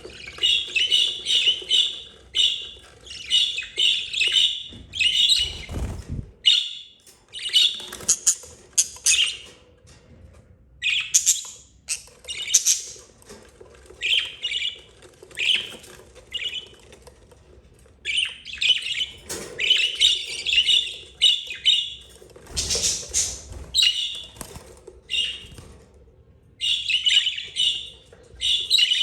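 Budgerigars, a mother and her month-old chicks, chirping and squawking in quick, repeated bursts, with short pauses between them. Twice there is a brief low thud.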